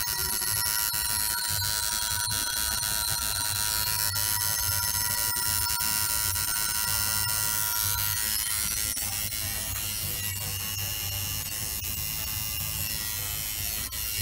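Tattoo machine buzzing steadily while the artist works on skin.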